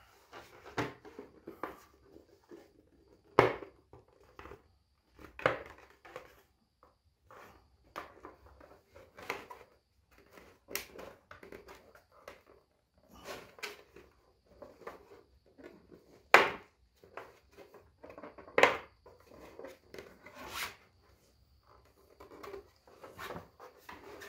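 Hands handling and fitting 3D-printed plastic helmet pieces: scattered taps, clicks and rustles, with a few sharper knocks, the loudest about three and a half seconds in and again about sixteen seconds in.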